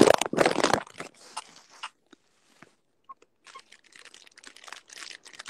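Crackling, rustling noise of a phone being handled, with skin and clothing rubbing over its microphone. It is loudest in the first second, dies away to near silence for about a second and a half, then comes back as steady scratchy rustling.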